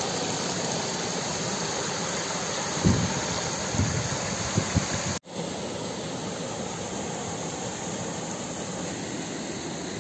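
A fast, muddy mountain stream rushing over rocks, a steady noise with a few low thumps in the first half. It cuts out for a moment about halfway through, then runs on.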